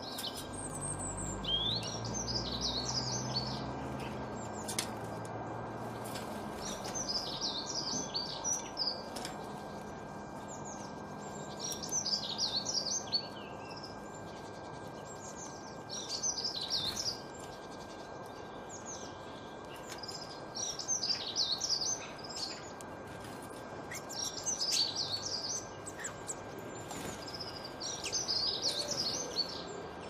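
A songbird singing short phrases of quick, high warbling notes, one phrase about every three to four seconds, over a steady outdoor hiss. A low drone is heard in the first few seconds and fades away.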